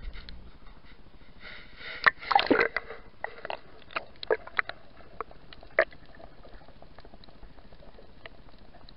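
A GoPro in its waterproof housing plunging into the sea: a splash and a burst of bubbling about two seconds in. It is then heard muffled underwater, with scattered sharp clicks and ticks.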